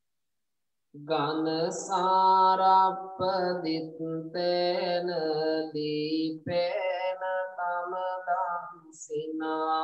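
A Buddhist monk's male voice chanting in a slow, drawn-out melody, starting about a second in and pausing briefly between phrases.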